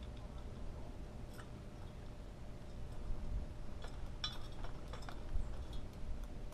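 A small bird at a metal tube seed feeder, making light clicks and taps as it pecks and grips: one click about a second in, then a quick cluster about four to five seconds in. A low steady rumble runs underneath.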